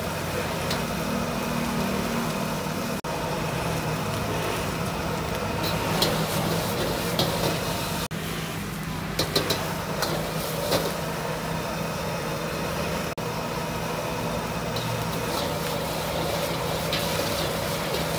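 Gas wok burner running with a steady rush and low hum under a wok, while a metal ladle clanks and scrapes against the wok now and then as noodles are stir-fried, with a cluster of clanks around the middle.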